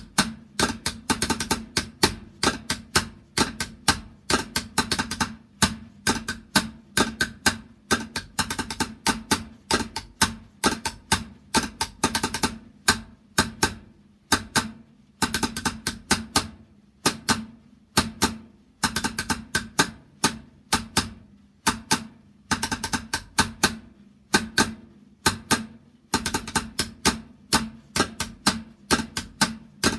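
A drum played with sticks: runs of quick, sharp strikes broken by short pauses, with the drum head ringing under them.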